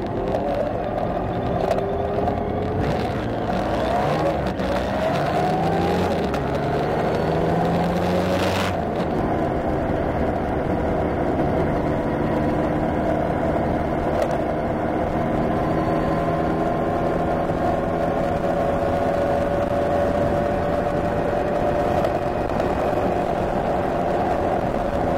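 Motorcycle engines of a group of classic Kawasakis, revving with rising pitch as the bikes accelerate away in the first several seconds. Then, after a sudden change about 9 s in, a steady engine drone with slow shifts in pitch as the group rides along at speed.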